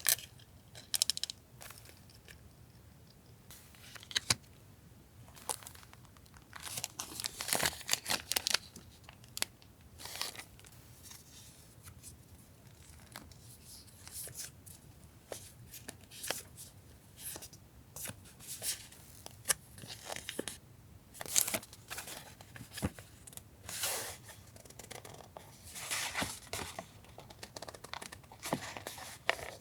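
Paper goods being handled: irregular rustling, crinkling and tearing of paper and packaging, in uneven bursts with a few sharp clicks.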